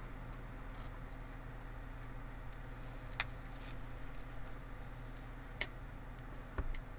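Light handling noise of a paper mask being lifted and held to the face, with two sharp clicks, about three seconds in and again near six seconds, over a low steady room hum.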